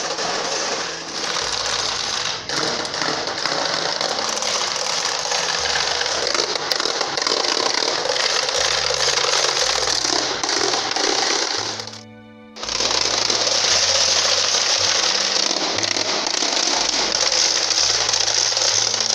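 Many wooden rattles (raglje) clattering together without a break, with a short drop about twelve seconds in. Low music notes run underneath.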